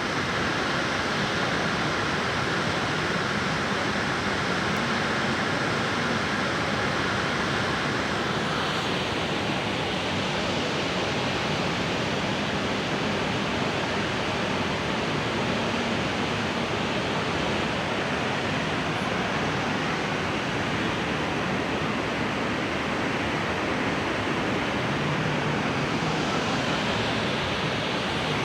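Waterfall rushing: a loud, steady roar of falling water with no break. The tone shifts slightly brighter about a third of the way in and again near the end.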